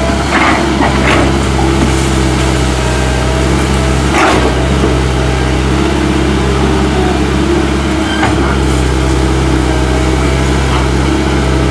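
Komatsu PC130 crawler excavator's diesel engine running steadily under load as it digs, with a few sharp cracks and knocks from the bucket working the ground at the tree's base, the clearest about four seconds in.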